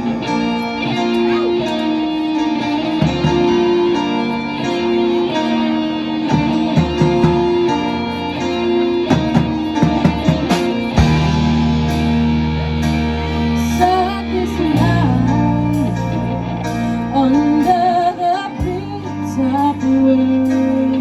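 Live rock band playing a song: electric guitars, bass, keyboard and drums.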